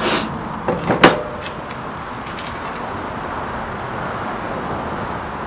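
A hand hammer knocking on steel pieces clamped in a bench vise. A short scrape at the start is followed, about a second in, by three sharp metal knocks within half a second, the last the loudest, over a steady background hiss.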